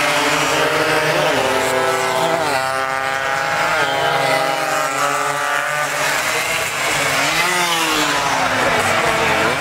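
Suzuki AX100 single-cylinder two-stroke race motorcycles running at full throttle past the track edge. Their engine notes climb in pitch and drop sharply a few times, and more than one engine is heard at once.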